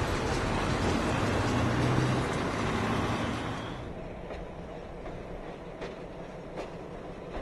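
Freight train cars, including a track-maintenance machine, rolling past close by: a loud, steady rumble of wheels on rail. About four seconds in it cuts off sharply to the fainter sound of a distant train approaching, with a few separate clicks of wheels over the rail.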